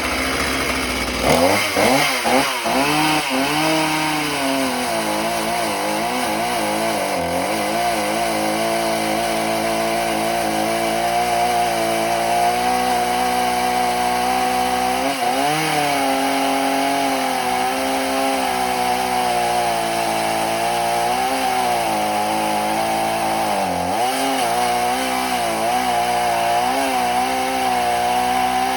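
Mountfield MC3720 two-stroke chainsaw running hard while cutting hard ash wood. Its pitch wavers and dips over and over as the engine bogs down in the cut; the saw is struggling.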